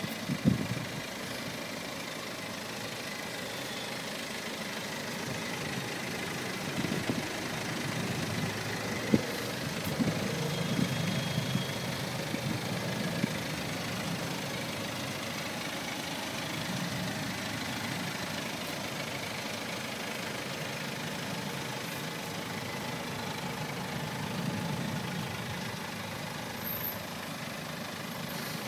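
BMW 520d saloon's two-litre four-cylinder turbodiesel idling steadily, with one sharp click about nine seconds in.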